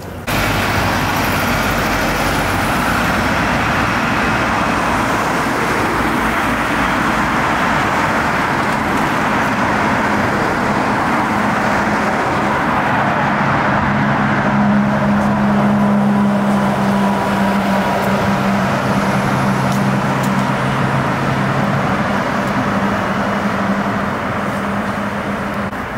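Night-time city road traffic: cars driving past with a continuous rush of tyre and engine noise that starts abruptly. From about twelve seconds in to past twenty seconds, a low steady engine hum rises above it.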